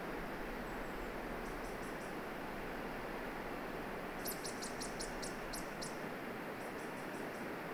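A small songbird giving three short runs of high, rapid chirps, the longest near the middle, over a steady rushing hiss.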